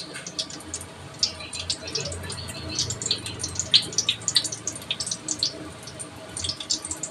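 Hot oil in a kadai sizzling and crackling as fresh strands of sev (gram-flour noodles) are pressed into it, with dense irregular pops throughout.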